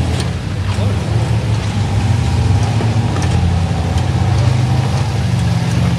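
Off-road vehicle engine running steadily with a low rumble, with a few faint ticks and clicks over it.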